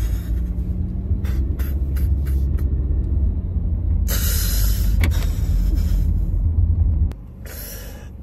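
Low, steady rumble inside a car, with a man's heavy, distressed exhalations over it and a few small clicks. The rumble drops away about seven seconds in.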